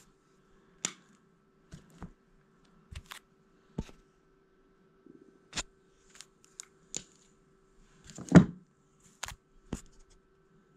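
Trading cards being handled: scattered small clicks and taps as cards are picked up and set down, with one louder knock about eight seconds in.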